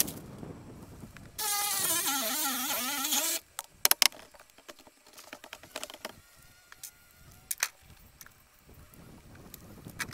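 A power tool's motor runs for about two seconds, starting and stopping abruptly, its pitch sagging under load and rising again. Afterwards come a few sharp knocks and cracks as siding and sheathing are pried off the door framing.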